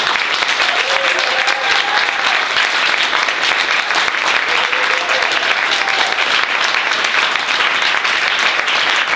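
Audience applauding steadily at the end of a poetry reading, with many hands clapping at once.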